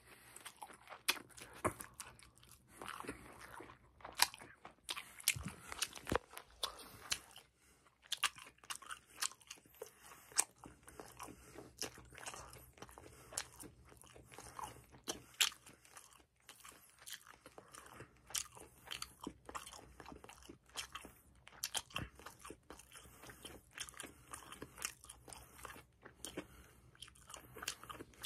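A person chewing a mouthful of yakisoba noodles, with many irregular sharp mouth clicks and smacks.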